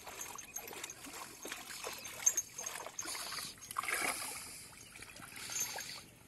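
Water sloshing and splashing around a person's legs as he wades through shallow water, with louder splashes a few seconds in and again near the end.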